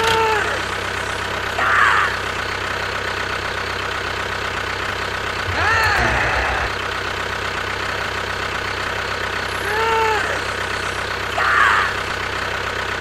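Mini tractor's small engine running steadily at idle, with short high rising-and-falling chirps every few seconds and a brief low rattle about six seconds in.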